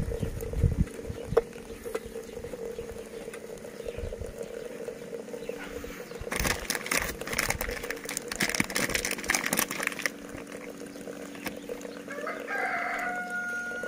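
Farmyard chickens clucking, with a few seconds of rustling, scuffling noise in the middle and one long, held call near the end.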